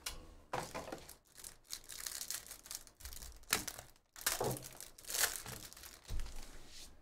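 Clear plastic wrapper on a pack of football trading cards crinkling and tearing as it is ripped open by hand, in a series of rustling bursts.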